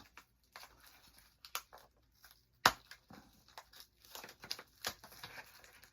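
Handling of a Blu-ray case and its packaging: scattered faint clicks and crinkles, with one sharper knock a little before the middle.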